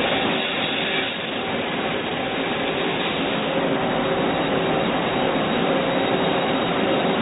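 Puma GT2100MS CNC lathe running: a steady machine noise with a few faint steady tones held throughout, dipping slightly about a second in.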